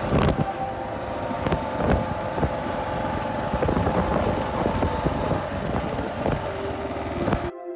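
Kawasaki KLR650 single-cylinder motorcycle running along a rough gravel track, heard from a handlebar-mounted camera, with wind buffeting the microphone and many short knocks over the ride. Near the end it cuts off suddenly into ambient music.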